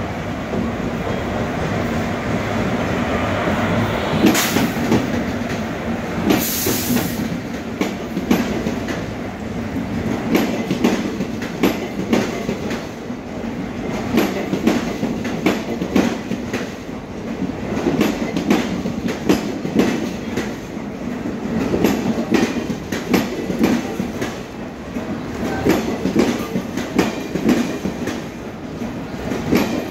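An Indian Railways passenger express arriving at a station behind an electric locomotive. The locomotive passes, with a brief loud noisy burst about four and six and a half seconds in. Then the coaches' wheels roll by in a steady clickety-clack of sharp clacks over the rail joints.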